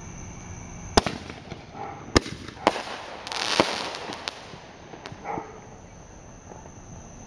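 Consumer aerial fireworks going off: four or five sharp bangs about a second apart, with a spell of hiss between them around the middle, then a couple of fainter pops before it dies away.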